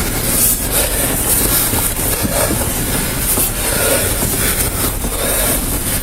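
Loud, steady rumble and clatter of a vehicle in motion.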